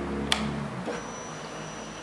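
Yamaha XJ6 inline-four engine running through a Kapetta aftermarket exhaust. Its low note drops away sharply under a second in. A single sharp click comes just before the drop.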